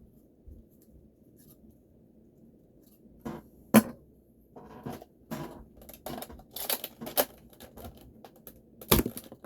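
Plastic clicks and clacks of a Nerf Zombie Strike Sledgefire break-action blaster being handled, loaded and fired. The sharpest snap comes nearly four seconds in, with another loud clack near the end.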